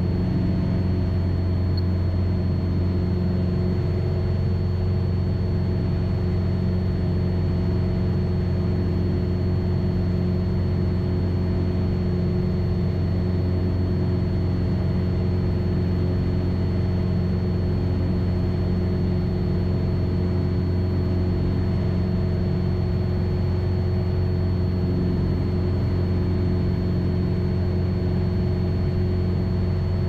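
Single-engine light aircraft's piston engine and propeller running steadily in the climb after takeoff: an even, low drone heard from the cockpit.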